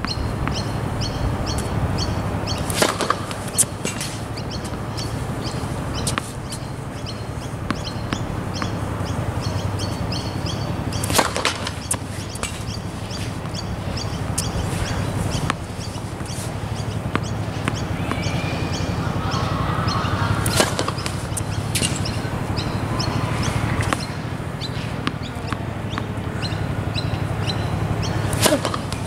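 Tennis serves: four sharp pops of the racket strings hitting the ball, roughly eight to nine seconds apart, with fainter ball bounces between them. Under them, a steady background hum and small birds chirping.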